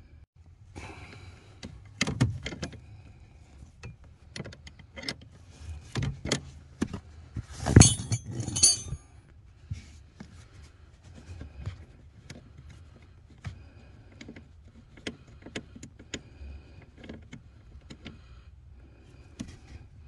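A 14 mm wrench clinking and clicking against the nut and metal bracket of a brake light switch as the nut is loosened: scattered sharp metallic clicks, with a louder cluster of clinks about eight seconds in.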